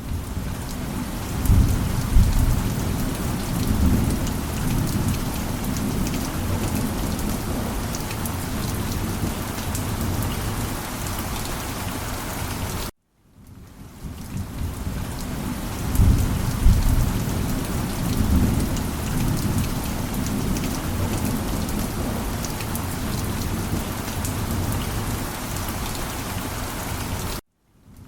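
Steady heavy rain with a low rumble of thunder about two seconds in and again about sixteen seconds in. The sound cuts out to silence for a moment about thirteen seconds in and again near the end.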